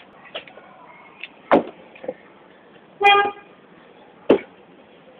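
Sharp thumps of a person climbing onto and landing on a seated person's back: a loud one about a second and a half in and another near the end, with smaller knocks between. About three seconds in comes a short horn-like toot with a clear pitch.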